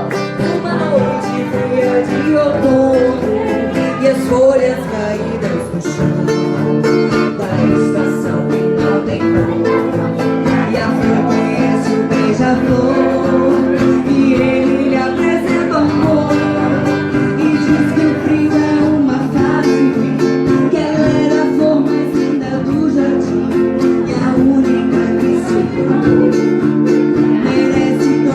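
Background music: a guitar-led song playing steadily.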